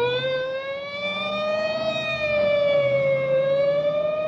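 Squad car siren sound effect: one wailing tone, just wound up, that drifts slowly higher, dips a little past the middle and climbs again.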